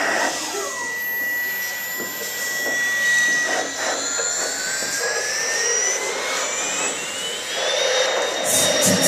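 Live electronic noise music from hand-held DIY electronic instruments. Over a steady hiss, a high whistling tone holds for about three seconds, then thin tones glide slowly upward over several seconds. Near the end a rapid pulsing chatter comes in.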